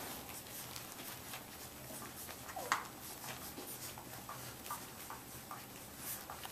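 Samoyed puppies nursing: a faint run of small wet clicks and smacks from suckling, with one short squeak that falls in pitch a little under three seconds in and a few tiny squeaks after it.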